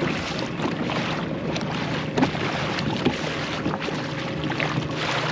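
Water rushing and splashing along a kayak's hull as an electric trolling motor drives it forward, with wind buffeting the microphone and a steady low hum underneath.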